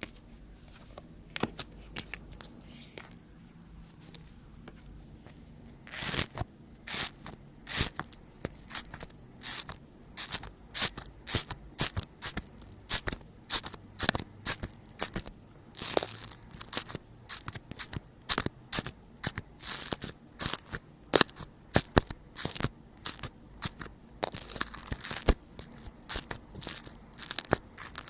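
Slime being squeezed and pressed by hand, giving sharp, irregular clicking pops and crackles. A few scattered clicks come first, then about six seconds in they turn into a rapid, dense run.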